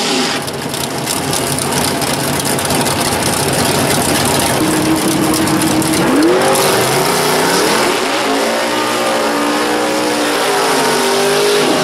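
V8 drag car doing a burnout: loud engine rumble, then about six seconds in the engine revs up sharply and is held high and wavering while the rear slicks spin and smoke.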